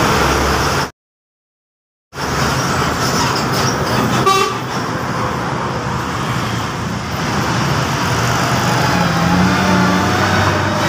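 Roadside traffic: trucks, cars and motorbikes driving past with engine and tyre noise, and a short horn toot about four seconds in. The sound drops out to silence for about a second near the start.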